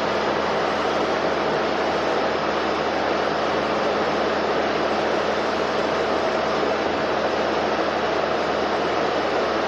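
Twin-shaft shredder running steadily, its counter-rotating toothed cutter discs tearing up waste plastic film: an even mechanical noise with a faint steady hum.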